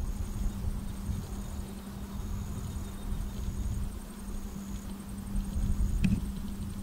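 Outdoor ambience of a low, uneven rumble with a steady low hum. Over it, a faint high-pitched insect chirp repeats in short pulses about once a second. A single sharp click comes about six seconds in.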